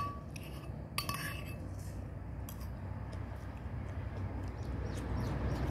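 Metal cutlery knocking on a ceramic plate: one sharp click about a second in and a few faint clicks after it, over a steady low background rumble.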